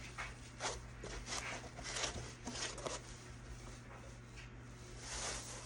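Packaging rustling and crinkling in irregular short swishes as an item is unwrapped and lifted out of a box.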